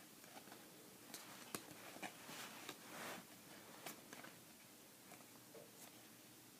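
Faint handling of trading cards: a few soft clicks and short rustles as cards are flipped and slid, over near silence.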